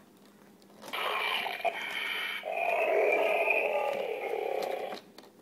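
A drawn-out imitation dinosaur roar, starting about a second in, getting louder and lower about halfway through, and stopping shortly before the end.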